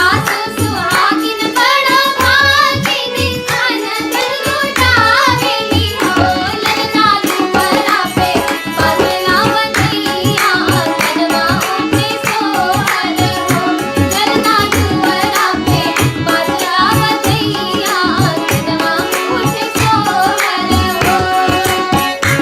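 Children singing a Hindi devotional song to Shiva, accompanied by tabla keeping a steady rhythm.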